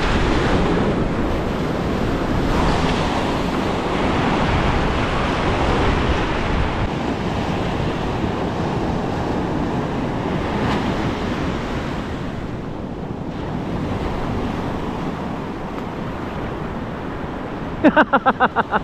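Ocean surf breaking and washing up the beach, with wind buffeting the microphone. A brief burst of a person's voice comes in near the end.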